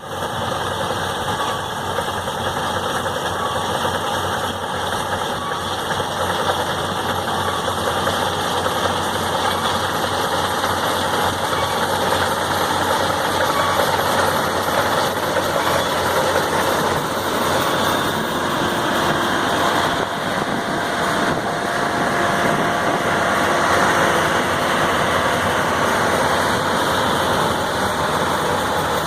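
Engine of a rice harvesting machine running steadily at work.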